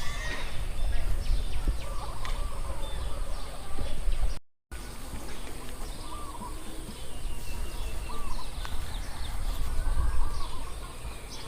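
Poultry in a field calling, many short overlapping calls and chirps, over a steady low rumble. The sound cuts out completely for a moment near the middle.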